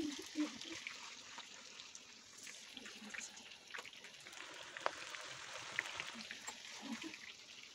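Oil sizzling in a pan as battered onion fritters deep-fry: a low, even hiss with scattered small pops.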